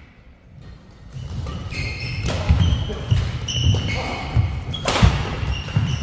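Badminton doubles rally on a wooden sports floor: court shoes squeaking in short high chirps, feet thudding, and rackets striking the shuttlecock, the loudest strike a sharp crack about five seconds in. Quiet for about the first second before the play picks up.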